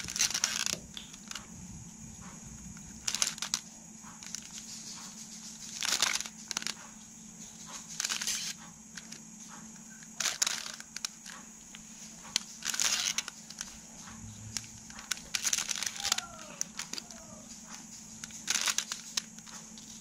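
Plastic 3x3 Rubik's cube being turned by hand: short bursts of its layers clicking and clacking as they rotate, about every two to three seconds.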